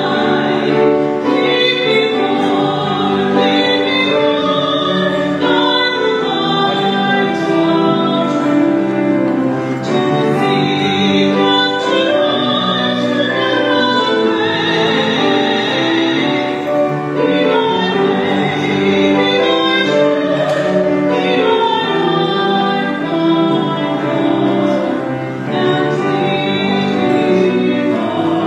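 Church music: a hymn sung by voices with instrumental accompaniment, held notes moving from chord to chord.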